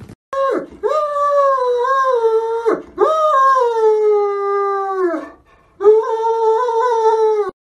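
Great Dane howling: three long, wavering howls, each sliding down in pitch at its end, the last one cut off abruptly.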